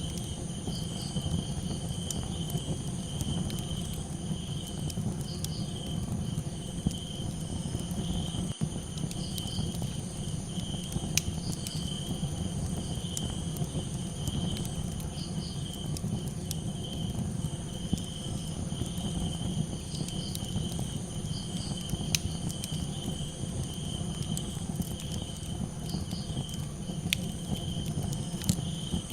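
Crickets chirping in a steady pulsing trill over the low, dense rumble of a campfire, with a few sharp crackles and pops here and there.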